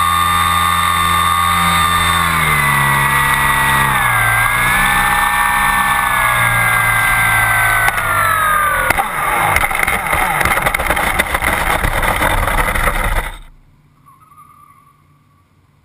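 Onboard sound of a SPAD RC model airplane's motor and propeller running steadily, then throttling down in two steps and lower again as it comes in to land. About eight seconds in it touches down and rattles and bumps as it rolls over dirt. A few seconds later the motor cuts off suddenly.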